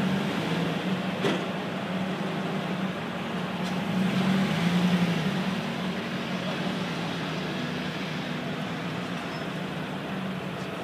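Large marina forklift's engine running steadily at idle while it holds a boat aloft, swelling slightly about four to five seconds in, over the noise of vehicles running around it.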